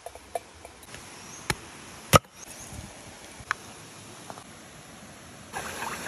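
Several short sharp knocks and taps, the loudest about two seconds in, over a steady hiss of trickling water. A louder rush of flowing water comes in near the end.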